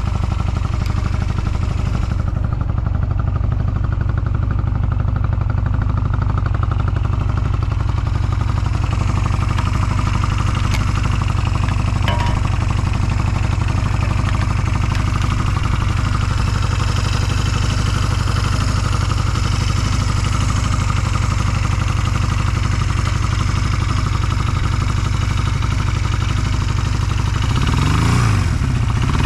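Honda Rebel 250 (MC13) custom's air-cooled twin-cylinder engine idling steadily, then revved briefly up and down near the end. It runs with no abnormal noise and picks up revs cleanly.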